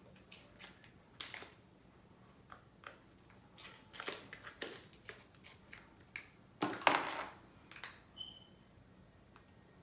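Plastic clicks and crinkles of a baby food squeeze pouch being handled and its screw cap twisted open, in scattered short bursts, loudest about seven seconds in.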